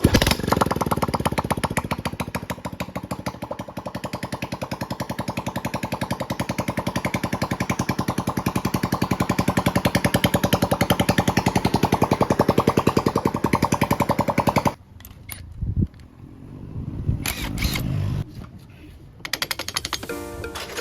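Honda RSX motorcycle's single-cylinder four-stroke engine running with a fast, even beat, growing a little louder, then shut off about fifteen seconds in; a few light clattering knocks follow.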